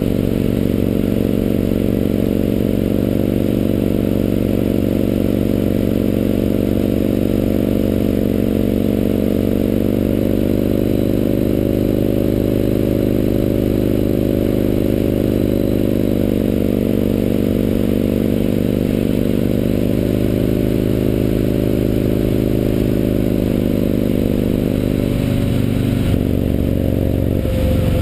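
Yamaha MT-01's big air-cooled V-twin engine running while riding, with the wind hiss held low by a wind-noise fix on the chest-mounted camera. The engine note drifts slowly in pitch and changes briefly near the end.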